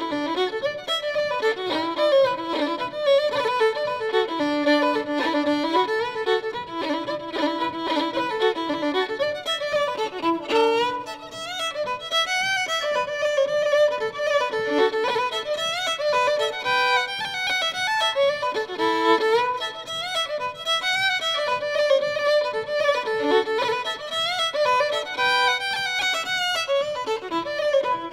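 Background music: a fiddle playing a melody of quickly changing notes.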